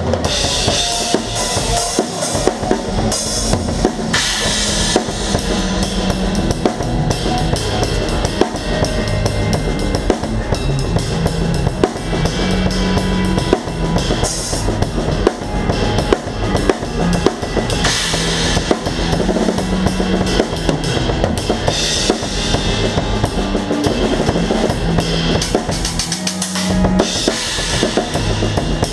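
Live rock drum kit played hard and fast: kick drum, snare and cymbal crashes in a dense rhythm, with low held notes underneath. About three seconds from the end the low end briefly drops out before the full kit comes back in.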